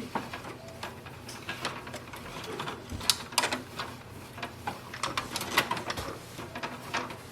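Irregular small plastic clicks and light rubbing as the HP DeskJet 4100's paper roller and its surrounding parts are wiped and handled.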